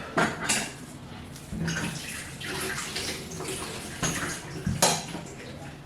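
A steady, water-like rushing noise with a few sharp clinks.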